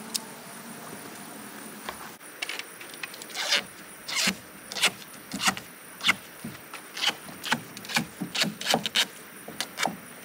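Zip System seam tape being worked onto the sheathing: an irregular string of short, sharp crackling sounds, about one or two a second, starting about two seconds in.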